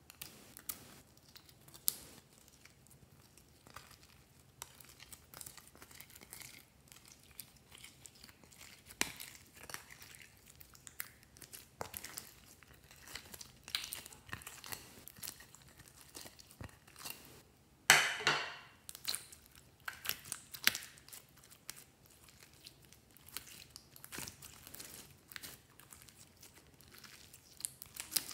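Hands working glossy slime: a run of small sticky clicks, crackles and squelches as it is pressed, stretched and folded, with one louder burst about two-thirds of the way through.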